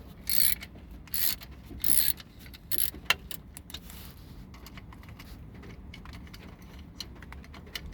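Ratchet wrench working the 12 mm nuts on the AC compressor's small cover: four short bursts of metallic ratcheting in the first three seconds, then a single sharp click, and quieter handling after that.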